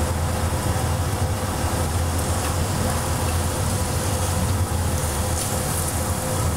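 Sliced carrots sizzling steadily in hot olive oil in a frying pan on a gas burner, over a steady low hum.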